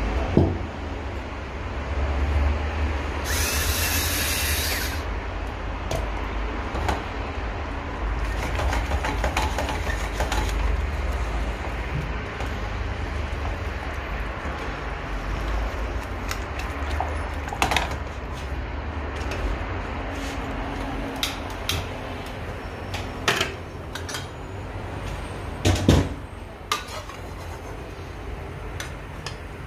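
Kitchen cooking sounds: a steady low hum, a short hiss about three seconds in, and scattered knocks and clinks of utensils against a pan.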